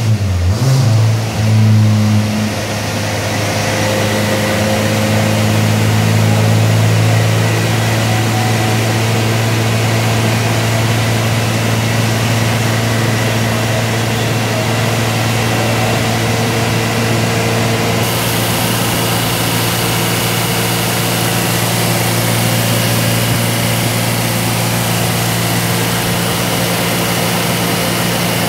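Honda VTEC four-cylinder engine running at a steady speed, its pitch holding level after a brief change in the first couple of seconds.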